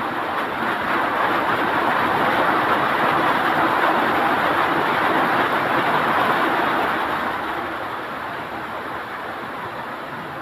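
Heavy rain falling, a steady rushing hiss that swells for several seconds and then eases.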